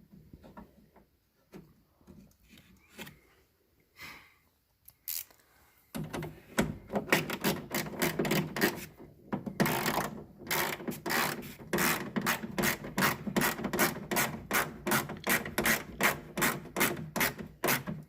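A 1/4-inch self-tapping screw being driven into the sheet metal of a pickup's door to hold the inside handle. A few scattered clicks and knocks, then from about six seconds in a steady run of rasping strokes, about three a second.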